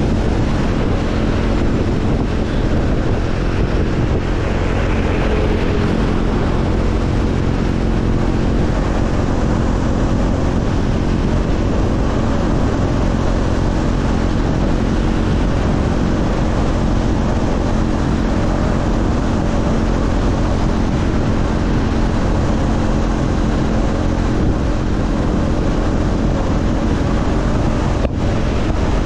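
Motorcycle engine running at a steady cruising speed under heavy wind noise on the microphone.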